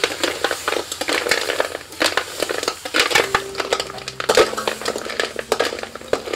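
Metal spatula scraping and stirring snails in their shells around a steel wok, the shells clattering against the pan and each other in an irregular run of clicks and scrapes.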